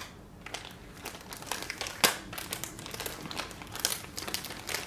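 A foil My Little Pony blind bag being crinkled and torn open by hand: a run of sharp crackles, with one louder crack about two seconds in.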